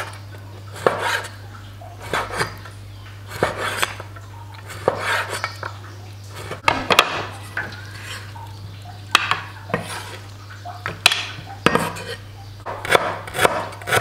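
Knife cutting on a chopping board: sharp knocks in short clusters, a group every second or two, over a steady low hum.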